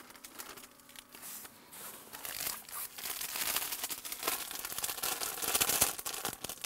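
Foil packet of dry fishing groundbait crinkling and rustling as it is emptied into a basin and handled, with a scatter of small crackles; the crinkling grows louder and busier after about two and a half seconds.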